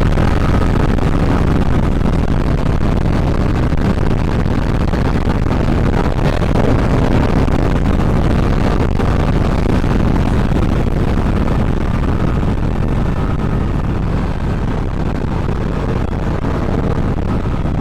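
Bajaj Pulsar RS 200's single-cylinder engine running steadily at road speed while riding, under a steady rush of wind on the microphone.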